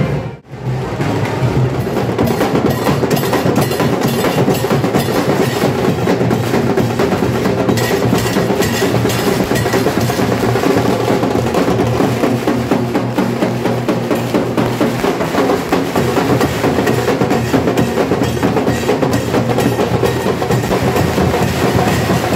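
Procession drums played fast and without a break, a dense run of sharp strikes. The sound drops out briefly about half a second in.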